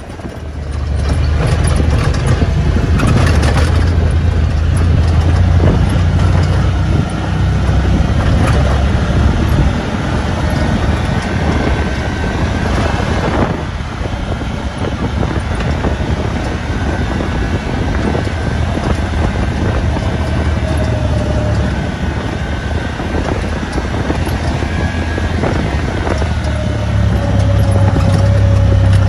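Side-by-side UTV engine running steadily, heard from inside the cab as it drives along a dirt track, a continuous low drone with road noise over it; it gets a little louder near the end.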